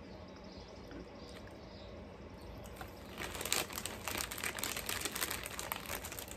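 Crinkly plastic snack packaging being handled. From about three seconds in it rustles in quick, irregular crackles.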